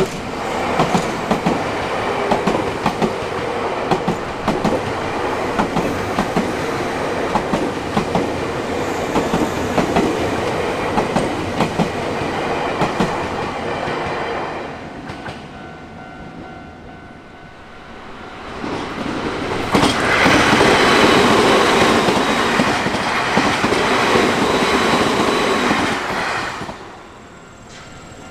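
Nankai Koya Line electric trains passing close by at a railroad crossing. The first passes for about fourteen seconds, its wheels clattering over the rail joints. After a few seconds' lull a second, shorter and louder passage follows and cuts off near the end.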